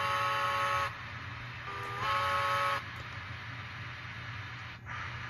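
Sound-equipped brass Pennsylvania Railroad N1s model steam locomotive blowing its whistle: two short blasts, each stepping up slightly in pitch as it starts. A steady low hum and a hiss run beneath.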